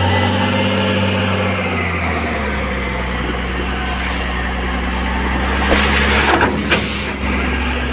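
A LiuGong 835 wheel loader's diesel engine runs steadily beside a dump truck. About six seconds in, crushed stone pours from the raised bucket into the truck's steel tipper body, a loud rush of falling stone with sharp clatters that lasts about a second and a half.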